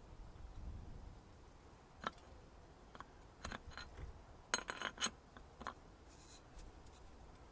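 Scattered sharp metallic clicks and clinks at irregular intervals, bunched together about four and a half to five seconds in: tools and metal strut parts being handled during shock absorber assembly.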